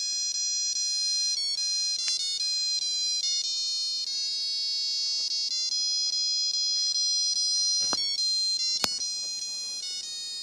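Ringtone-like electronic melody of high, sustained notes stepping from pitch to pitch, with a couple of sharp clicks late on.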